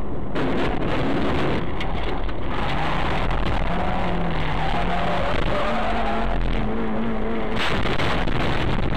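Dashcam audio from inside a car at highway speed: loud, steady road and wind noise with several knocks and rattles. The biggest knock comes near the end, as the camera is jolted.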